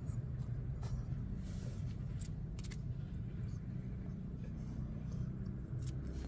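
A steady low mechanical hum, like an engine or motor running, with scattered light scratches and clicks.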